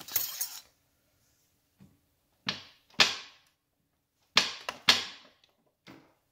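A brief scrape, then about six sharp knocks and clicks at uneven spacing, each with a short ringing tail, the loudest about three seconds in: hand tools striking and working on a motorcycle engine.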